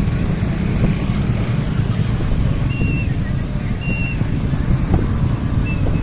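Steady low diesel rumble of heavy machinery at work: a dump truck tipping its load and a hydraulic excavator running. A few short high chirps sound over it near the middle and end.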